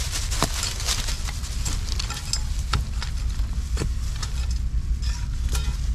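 Rustling and crackling in dirt and undergrowth: a run of irregular sharp clicks and snaps over a steady low rumble.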